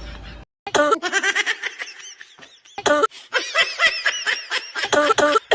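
High-pitched laughing in several bouts of quick repeated bursts, with a brief gap about half a second in.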